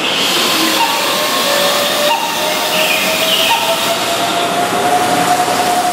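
Keihan 9000-series electric train pulling away from a station platform: a steady rushing noise of the cars with a motor whine that rises slowly in pitch as it gathers speed.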